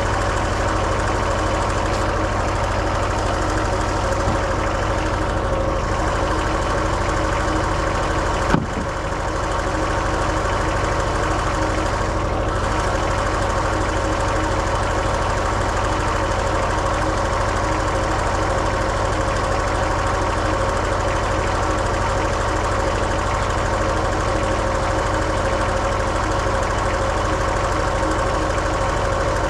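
Kohler 17 hp diesel engine of a Wood-Mizer LT15 portable sawmill running steadily, with one sharp knock about eight and a half seconds in.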